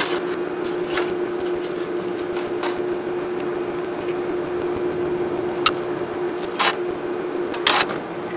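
A steady mechanical drone holding one constant tone, with a few short, sharp metallic clanks scattered through it, about five in all.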